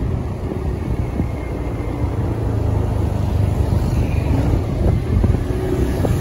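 Wind buffeting the microphone of a camera riding along a road in a moving vehicle, over a steady low road rumble.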